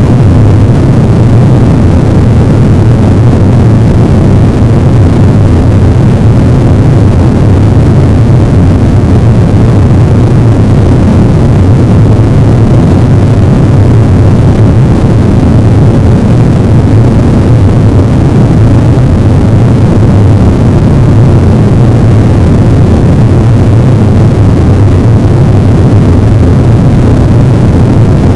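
Harsh noise wall: a loud, unchanging wall of dense noise, heaviest in the low rumble, with no rhythm, tones or breaks.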